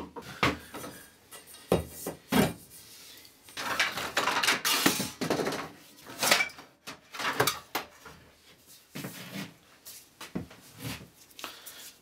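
Metal pipes, rods and old golf club shafts clanking and clinking together as they are rummaged through and pulled out of a pile of scrap metal, in irregular spells of clatter.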